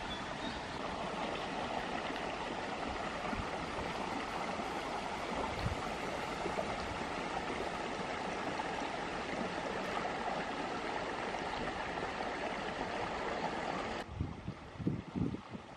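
Shallow rocky stream running over stones, a steady rush of water. Near the end it cuts off abruptly and gives way to gusts of wind buffeting the microphone.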